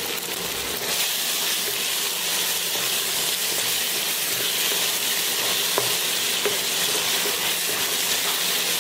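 Chopped tomatoes and onions sizzling in oil in a non-stick pan, with a steady hiss, while a wooden spatula stirs them, adding a few light scrapes and taps.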